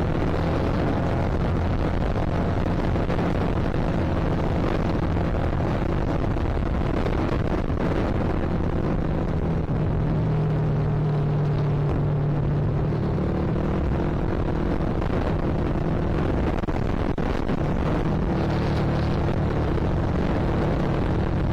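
Yamaha Vixion Advance motorcycle's single-cylinder engine running steadily while riding, engine pitch shifting a little, with strong wind buffeting the microphone.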